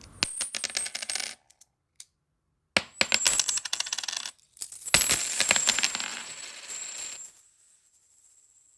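Coins dropping in three separate bursts of rapid metallic clinks, about a second and a half each. The last burst is followed by a thin high ringing that fades out slowly.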